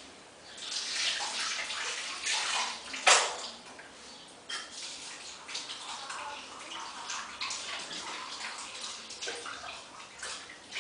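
Water splashing for about three seconds, with a sharp click near its end, then irregular light scraping and tapping.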